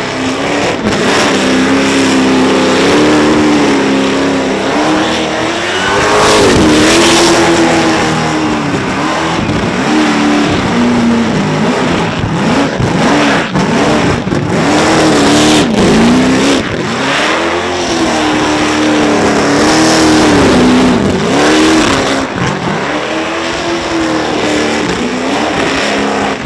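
Supercharged 502-cubic-inch V8 in a Holden HQ ute revving hard during a burnout, its pitch rising and falling again and again as the revs are held high and bounced, over the hiss of spinning tyres.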